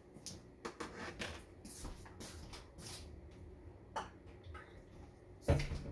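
Scattered light clicks and taps of kitchen items being handled, with a louder knock about five and a half seconds in.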